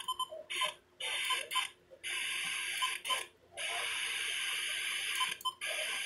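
Midland weather radio being tuned across the FM band: stretches of steady static hiss between stations, cut by short silences as the frequency changes, with brief key beeps as the buttons are pressed, several in quick succession near the start and again about five seconds in.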